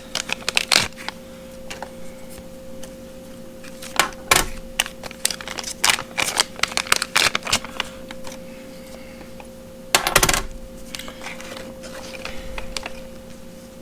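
Small hard-plastic GoPro buckle mounts clicking and clattering against each other and the table as they are handled and set down, in runs of quick clicks with a louder burst about ten seconds in.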